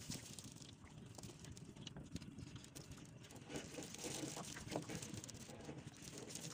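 Water pattering and dripping off a wet mesh fishing net as it is lifted and shaken by hand, with many small scattered crackles and rustles.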